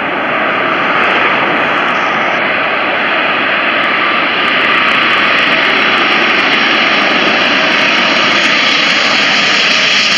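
Boeing 747 on low approach passing overhead with its landing gear down: the steady noise of its four jet engines, with a thin high whine, growing louder about four seconds in.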